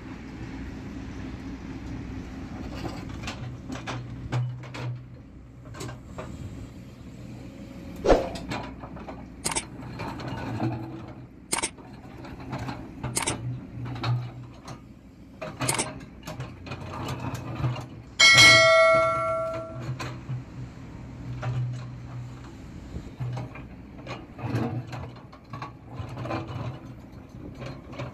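JCB 205 tracked excavator's diesel engine running steadily as its bucket digs a trench in stony ground, the bucket knocking and scraping on stones several times. About two-thirds of the way through, one loud metallic clang rings on for more than a second.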